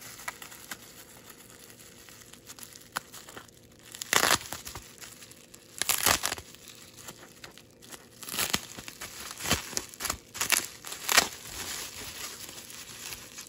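Plastic bubble wrap crinkling and tearing as it is pulled open by hand, in irregular short bursts, the loudest about four and six seconds in and again near the end.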